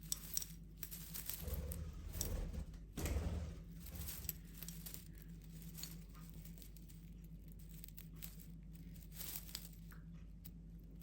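A budgie moving about in Christmas tree branches: light rustling with scattered small clicks, busiest about two to three seconds in.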